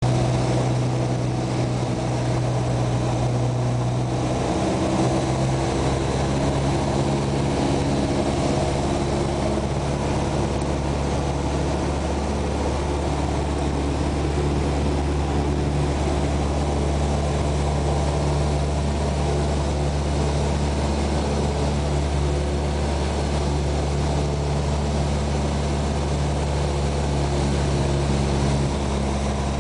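Cessna 172's single piston engine and propeller running with a steady drone, its note shifting slightly about five seconds in.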